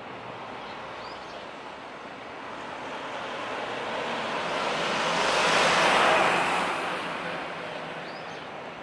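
A vehicle passing by: a rush of noise that swells to its loudest about six seconds in and then fades away.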